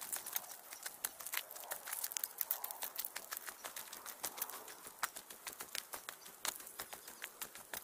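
Footsteps crunching along a hiking trail: a rapid, irregular series of crunches and clicks.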